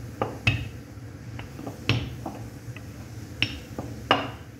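A wooden rolling pin rolling out dough on a counter, with a handful of sharp, irregular knocks and clacks as it is pushed and lifted, over a steady low hum.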